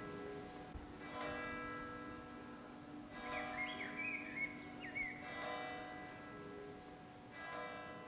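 Church bell tolling, four strikes about two seconds apart, each ringing on over a steady low hum. Small birds chirp briefly in the middle.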